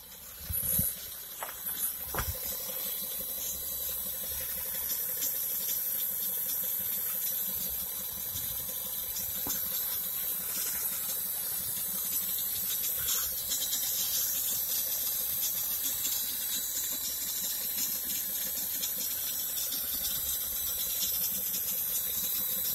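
Steady hissing, rushing noise, like liquid or air moving, from inside a tank on a 2012 BMW X5 diesel (E70). It comes up in the first second or so, with a few short knocks, then holds level.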